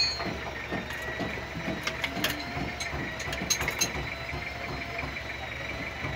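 Irregular metallic clicks and clinks of a spanner working on the steel injector pipe fittings of a heavy-duty diesel engine's injection pump, over a steady faint background hum.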